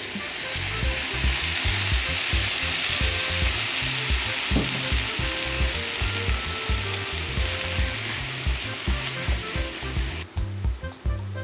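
Yakisoba frying in a pan: a steady sizzle that cuts off abruptly near the end, over background music with a steady beat.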